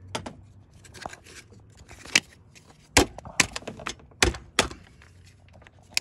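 Sharp metal clicks and knocks, about half a dozen loud ones at uneven intervals in the middle of the stretch, from hands working a car battery's terminal clamp onto its post, shimmed with a bent penny, and its red plastic cover.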